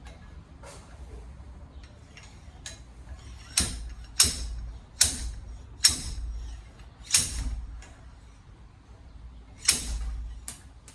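Sharp metal-on-metal knocks and clanks from hand tools working on a steel wheel-bearing spindle held in a vise, about six strikes with a ringing tail between a few seconds in and near the end, at uneven intervals.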